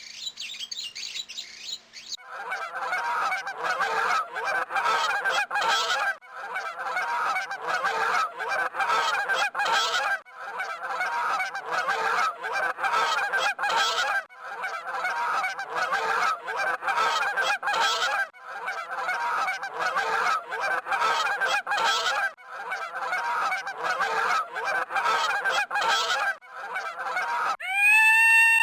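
A dense chorus of loud bird calls from a flock, in blocks that break off and start again about every four seconds. About a second before the end it gives way to a different call with a clear rising-and-falling pitch.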